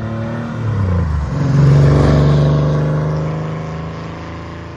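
Porsche sports car driving past, its engine note dropping in pitch over the first second, loudest about two seconds in, then fading as it moves away.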